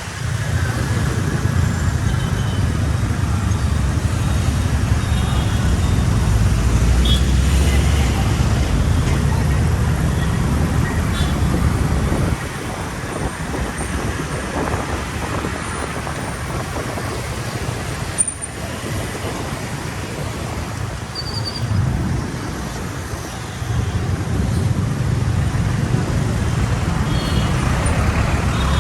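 Road traffic noise: vehicle engines and tyres rumbling. The rumble is heavy for the first twelve seconds, drops back, and builds again about 22 seconds in.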